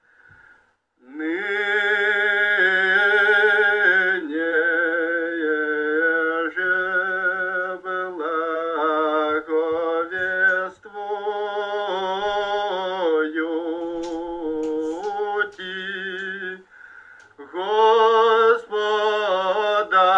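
Men's and women's voices singing a slow chant in long held, wavering notes, in more than one part, like Old Believer church singing. It starts about a second in and breaks off briefly near the end.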